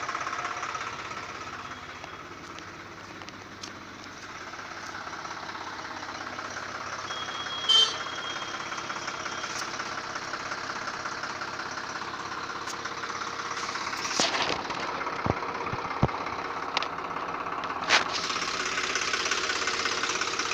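Swaraj 735 FE tractor's three-cylinder diesel engine idling steadily, with a short sharp sound about a third of the way in and several sharp knocks and clicks in the last third.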